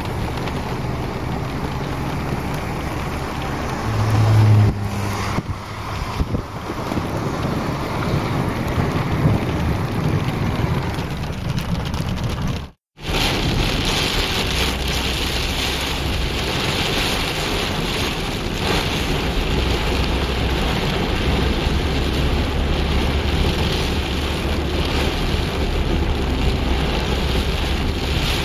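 Steady wind noise on the microphone, with a brief low hum about four seconds in. After a cut about halfway through, heavy rain pours on a car's windshield and body as it drives, over a steady low rumble of road and engine.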